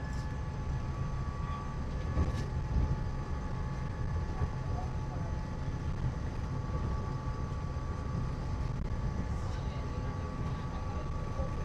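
Walt Disney World Mark VI monorail train travelling at a steady pace: a low rumble with a few steady whining tones above it.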